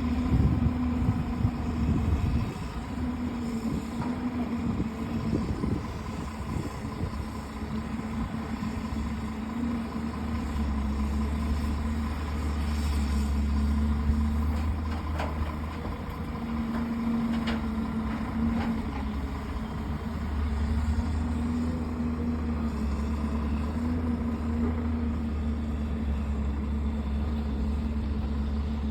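Heavy machine's engine running steadily, its drone swelling and easing at times, with a few short sharp clanks around the middle.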